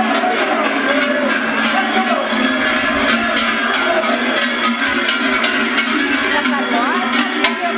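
Cattle bells clanging irregularly on a herd of steers and bulls running along a paved street, over crowd voices.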